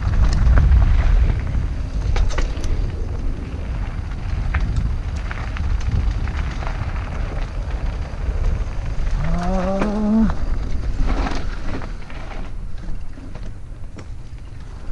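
Wind rumbling on a helmet-mounted camera's microphone, with tyres on a dirt trail and the rattle and clicks of a full-suspension mountain bike descending fast. About nine seconds in comes a brief rising voice-like hum, and the rumble eases in the last few seconds.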